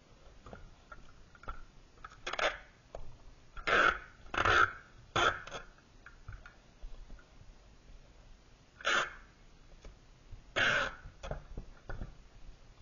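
A cardboard box being sealed with clear packing tape from a handheld tape-gun dispenser: about six short noisy bursts of tape pulling off the roll and rubbing onto cardboard, three of them close together about four to five seconds in, with light handling ticks between.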